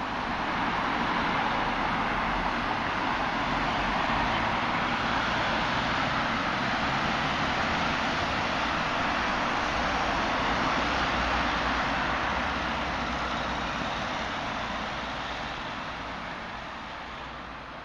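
Steady rush of road traffic noise with no single vehicle standing out, fading gradually near the end.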